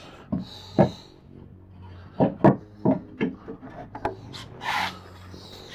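Wooden bunk bed frame parts knocking and rubbing against each other as they are pushed and fitted together: a series of short, sharp wooden knocks with some rubbing between them.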